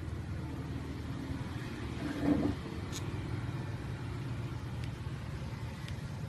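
Steady low background rumble, swelling briefly a little over two seconds in, with a few faint clicks of a mobile phone keypad being pressed.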